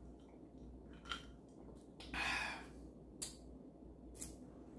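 Quiet pause with a single short breathy exhale about two seconds in, and a few faint clicks, typical of a person tasting a drink.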